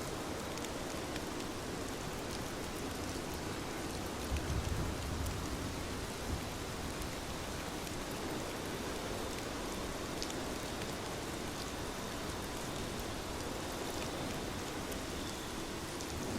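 Heavy rain falling steadily, with scattered sharp drop ticks and a brief low rumble about four seconds in.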